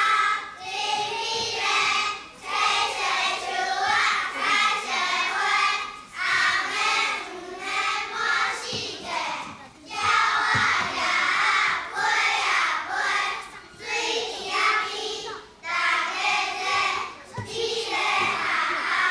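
A class of young children chanting a rhyme in a Taiwanese native language in unison, in sing-song phrases of a few seconds with short breaks between them.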